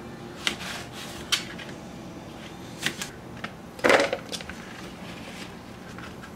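Kitchen knife cutting zucchini on a plastic cutting board: a few scattered sharp taps, then a louder clatter about four seconds in as the cut pieces are put into a plastic bowl.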